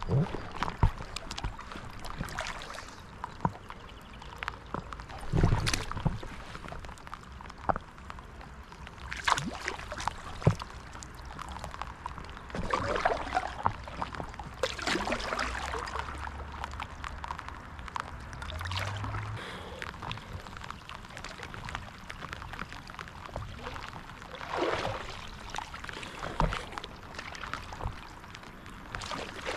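Paddle strokes in water from a stand-up paddleboard: an irregular series of swishing, pouring splashes every few seconds as the blade dips and pulls, with scattered sharp clicks and drips between strokes.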